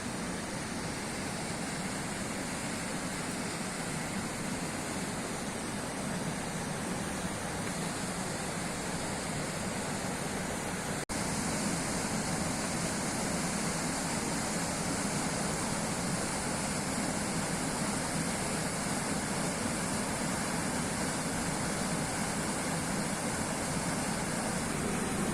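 Steady rushing of river water tumbling over falls. A momentary break about eleven seconds in, after which the rush is slightly louder.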